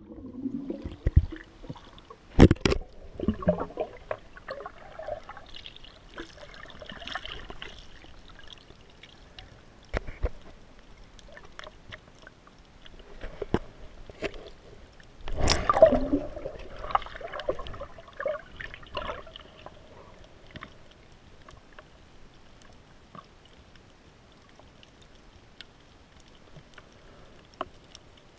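Muffled water sloshing and gurgling around a camera carried just under the sea surface, with scattered knocks, a sharp one about two seconds in and a louder splashing burst about halfway through. It dies down to a faint hiss for the last several seconds.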